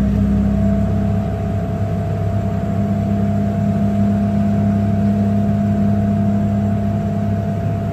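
An Allis-Chalmers farm tractor's engine running steadily, a constant hum with a steady whine over it.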